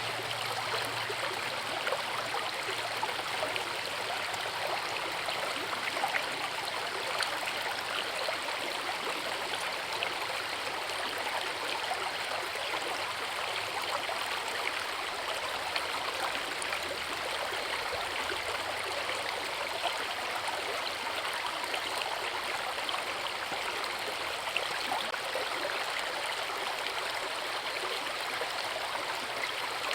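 Forest river flowing with a small waterfall: a steady, continuous rush of water.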